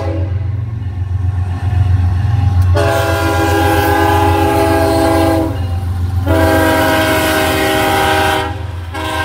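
Kansas City Southern GE ES44AC diesel locomotive sounding its multi-chime air horn for a road crossing as it passes close by. The horn cuts off just after the start, then gives a long blast from about three seconds in, a second long blast after a short gap, and a third starting near the end, over the steady low rumble of the engine.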